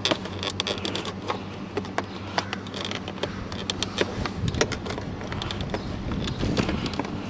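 Irregular sharp plastic clicks and creaks as a door trim panel is worked off a 2013 Toyota RAV4 door with a plastic pry tool, the panel's fasteners letting go. A faint steady low hum runs underneath.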